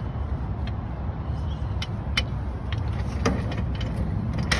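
Wind buffeting a phone microphone, a steady low rumble, with scattered irregular clicks and a sharper knock near the end.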